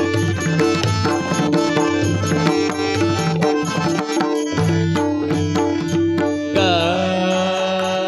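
Instrumental interlude of Marathi devotional abhang music: tabla keeps a quick beat under sustained melodic notes. About six and a half seconds in, a tone slides down in pitch and settles into held notes.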